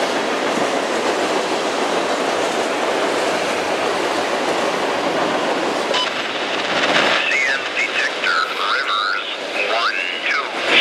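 Freight train cars rolling steadily across a steel bridge, a continuous rushing rail noise. From about seven seconds in the train noise eases and a voice is heard over it.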